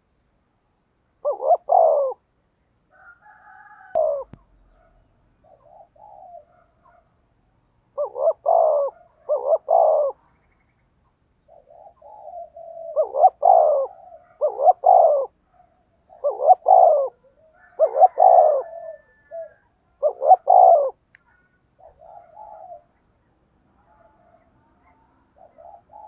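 Spotted dove cooing its 'thúc gù' call: deep coos in groups of two or three, with quieter notes between and a longer run of coos in the second half.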